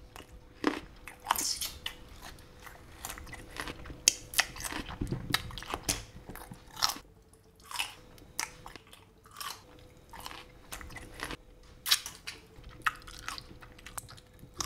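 A person chewing food loudly with the mouth open: an irregular run of wet smacks and crunches.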